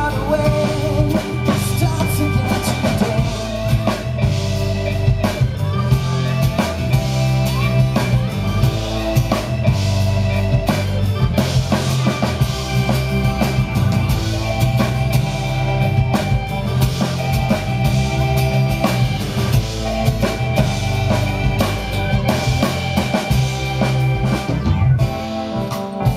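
Live band playing an instrumental passage without vocals: a drum kit keeps a steady beat under keyboard and acoustic guitar.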